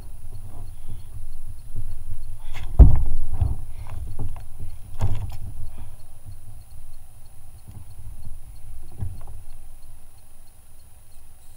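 Knocks and thumps of a landing net with a caught fish being lifted aboard a kayak, the loudest about three seconds in and another about five seconds in, over a steady low rumble.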